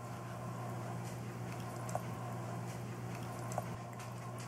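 Faint soft squishing of stuffing being spooned into a raw chicken's cavity, with two light ticks from the metal spoon, over a steady low hum.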